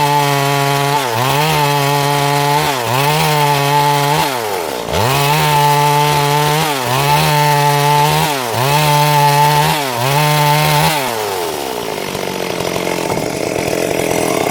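Two-stroke chainsaw running at high revs while cutting wood into planks. The engine note sags and picks back up about every second and a half, dipping deepest about five seconds in. About eleven seconds in, the engine note falls away and leaves a rougher, rushing noise.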